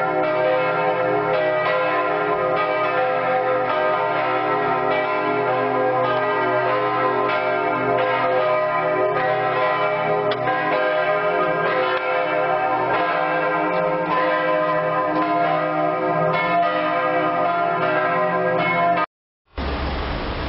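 Church bells pealing, several bells ringing together in a dense, steady wash of overlapping tones. The sound cuts off suddenly near the end.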